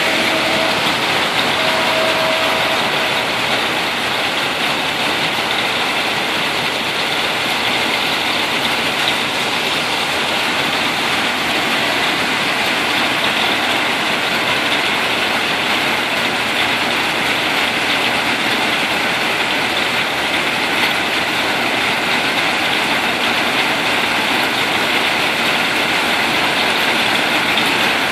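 Steady hiss of rain falling on the car's roof and glass, heard from inside the vehicle.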